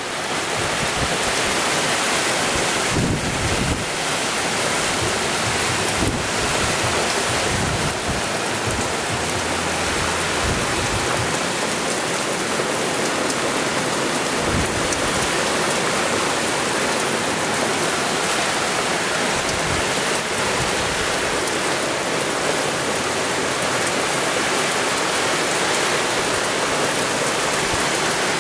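Heavy rain pouring steadily in strong wind, with occasional low gusts buffeting the microphone.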